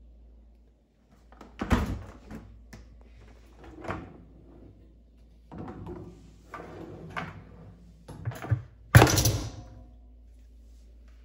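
A dishwasher being handled: a series of knocks, thuds and clatters from its door and parts, with the loudest knock about 9 seconds in and another about 2 seconds in.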